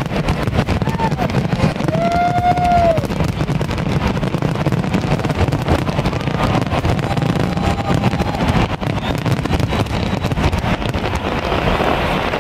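Aerial fireworks display going off without pause: a dense, continuous mix of booming shell bursts and rapid crackling.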